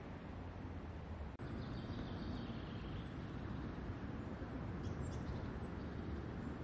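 Steady outdoor background noise, with a faint high bird call from about a second and a half to three seconds in.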